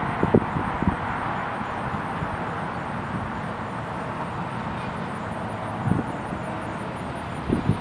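Steady outdoor hum of distant traffic, with a few dull low thumps near the start, once about six seconds in and several near the end.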